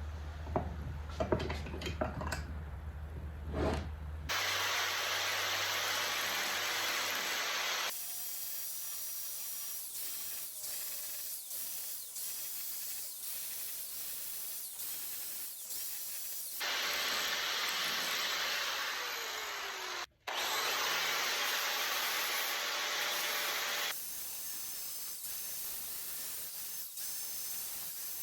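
Angle grinder grinding the face of a steel hammer head: a steady hiss of abrasive on steel that grows louder in stretches, as the disc is pressed in, and eases between them. It cuts out for an instant about 20 seconds in.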